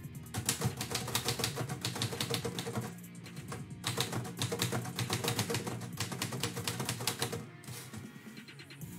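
Manual typewriter being typed on in quick runs of keystrokes, with a short pause about three seconds in. Near the end the carriage is pushed back for a new line. Background music plays steadily underneath.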